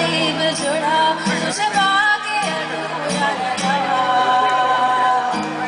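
A girl singing a melody into a microphone to an acoustic guitar accompaniment, with several long held notes in the second half.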